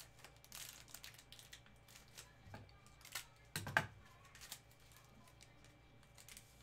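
Plastic foil wrapper of a Donruss baseball card pack crinkling and tearing as it is handled and opened by hand, in scattered soft crackles with a couple of louder ones about three and a half seconds in.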